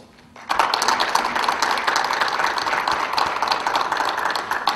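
Audience applauding, starting about half a second in and stopping abruptly near the end.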